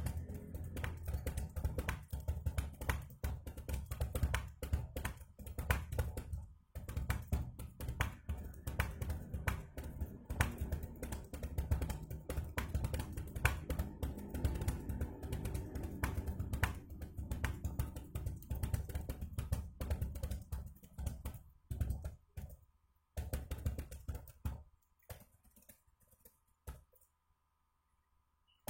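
Fast, continuous typing on a computer keyboard: a rapid stream of keystrokes during a typing speed test. The typing thins out and stops a few seconds before the end.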